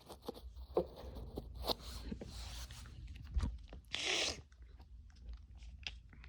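Packaging being handled: scattered crinkles, clicks and taps, with a longer rustle about four seconds in.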